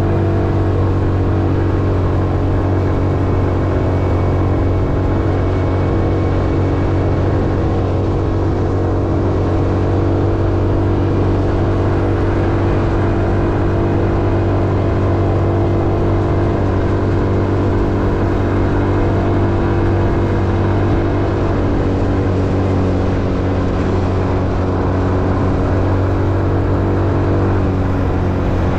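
A road vehicle's engine running steadily at a constant speed: an even hum with road noise, its pitch shifting slightly near the end.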